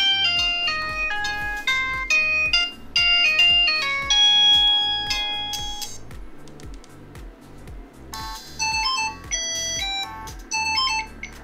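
Polyphonic ringtone melodies playing from the Swiss One phone's loudspeaker as its built-in tones are previewed from the ringtone menu: a melody of short beeping notes over a steady beat. About eight seconds in, one tune breaks off and a different one starts.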